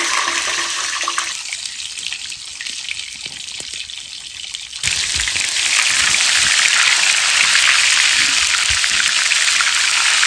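Cut potatoes frying in hot oil, a steady sizzle that jumps sharply louder and more crackly about five seconds in.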